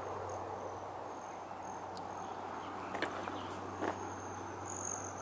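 Crickets chirping in a thin, high, pulsing trill that grows louder near the end, over a steady low hum and hiss. A few faint clicks are heard about two, three and four seconds in.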